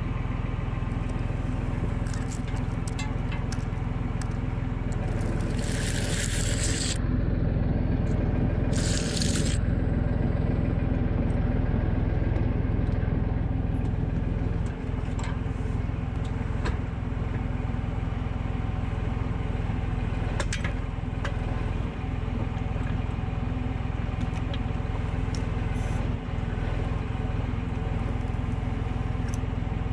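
Valtra A93 tractor's diesel engine running steadily under way, with scattered clicks and knocks and two bursts of loud hissing about six and nine seconds in.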